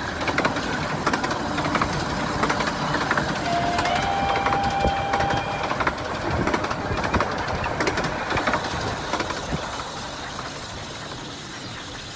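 Steam train running, with a clattering noise and a whistle sounding for about two seconds around four seconds in. The train sound fades down near the end.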